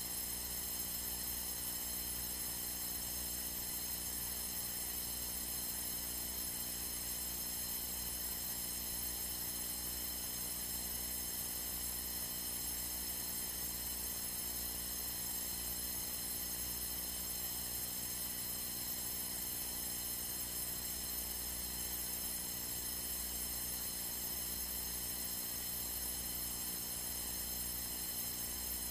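Steady electrical hum and buzz over a faint hiss, unchanging throughout: the background noise of an aircraft audio feed during cruise, with the radio silent.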